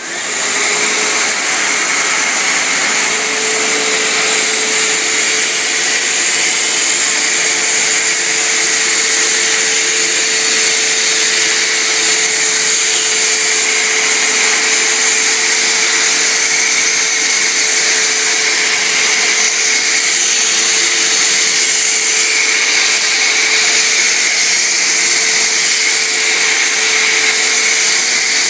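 Hoover WindTunnel self-propelled upright vacuum cleaner switched on, its motor spinning up in the first second and then running steadily: a loud rush of air with a steady hum-like tone underneath.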